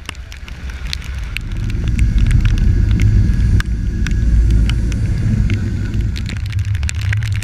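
Wind buffeting the camera microphone in a heavy low rumble on a boat running through rough seas, with scattered sharp clicks of sea spray hitting the camera housing. The rumble builds over the first two seconds.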